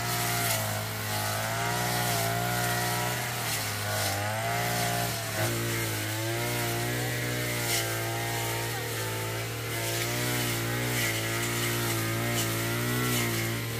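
Small two-stroke engine of a petrol power tool, running hard at high speed with its pitch wavering up and down as it takes and sheds load while clearing brush.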